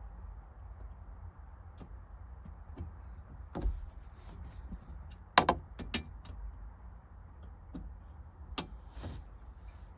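Scattered sharp metal clicks and knocks from hand tools and bolts while a roll bar is being fitted in a Jeep, the loudest two about five and a half and six seconds in, over a low steady rumble.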